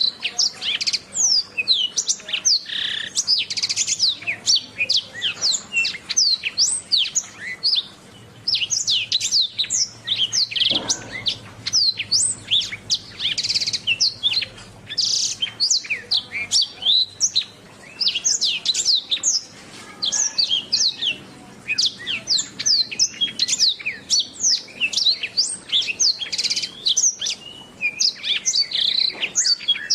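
Domestic canary singing a long, unbroken song of rapid high chirps and trills, many quick sweeping notes a second.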